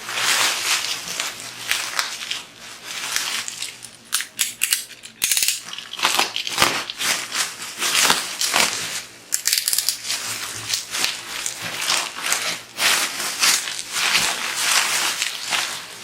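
Toy packaging being handled and opened: plastic wrap and cardboard rustling, crinkling and crackling in irregular bursts, some of it likely being cut.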